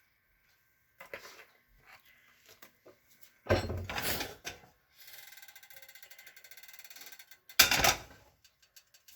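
Cookware being handled at the stove: two loud clanks about four seconds apart, with a steady hiss between them and small clicks before.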